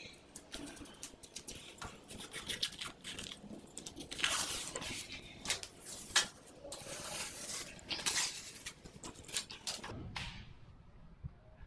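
The waterproof top layer of wallpaper being peeled off a wall by hand: a continuous crackling, ripping sound with many sharp crackles. It is loudest in the middle and stops about ten seconds in.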